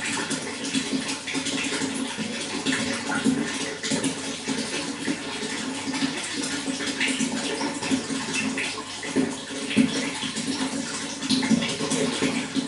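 Running water flowing and splashing steadily, a continuous rush with a fuller gurgle low down and small splashes flickering over it.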